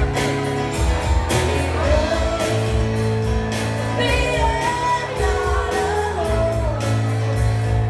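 Music: a song with a sung vocal line over drum beats and steady bass notes.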